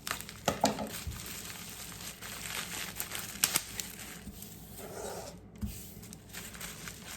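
Packaging being crinkled and handled while a parcel of jewelry is unwrapped: an uneven rustling with sharp crackles and snaps.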